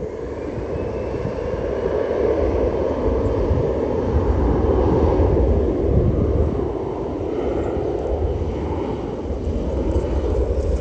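Jet airliner passing low overhead, its engine noise swelling over the first couple of seconds and staying loud, with a deep rumble.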